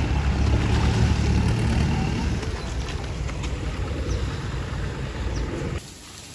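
Steady low noise of a boat under way: its motor running with water moving past the hull, plus a few faint splashes. It cuts off suddenly near the end, leaving a much quieter outdoor background.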